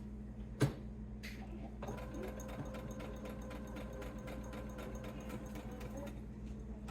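Electric sewing machine stitching: after a single click, the motor whines and the needle ticks at a fast, even rate for about four seconds, then stops.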